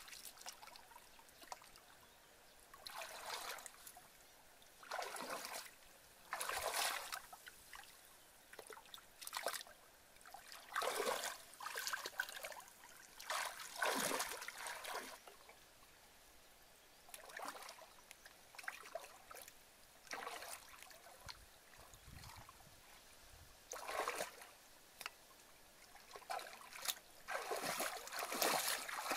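Shallow muddy water splashing and trickling as hands grope and scoop through it. The sound comes in irregular bursts every second or two, with quieter spells between.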